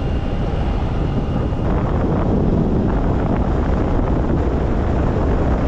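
Heavy, steady wind noise on the microphone of a camera riding on a moving scooter, with a low rumble of road and engine underneath.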